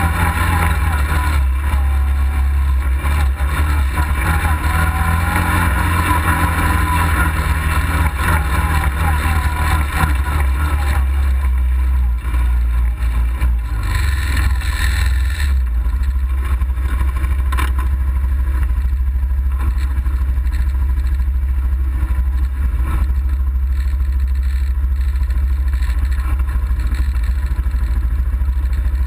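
Engine of an off-road vehicle running while it crawls over rock, its note shifting up and down in the first part and steadier, lower in the second half, under a heavy low rumble.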